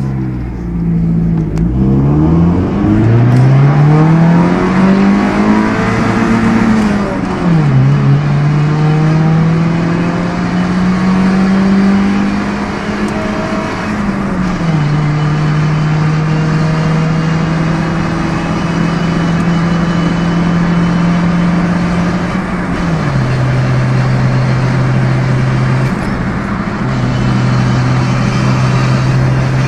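Kia Sportage 2.0-litre four-cylinder engine, running on E85, heard from inside the cabin under hard acceleration. The engine note climbs in pitch through each gear and drops at upshifts about two, seven, fourteen and twenty-three seconds in, each higher gear climbing more slowly.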